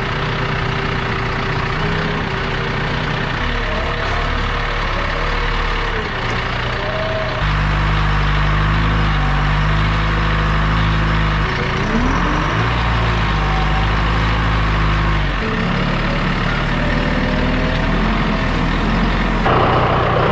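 Backhoe's diesel engine running steadily as the machine works, louder and deeper for several seconds in the middle, with a thin whine that shifts in pitch and one rising glide.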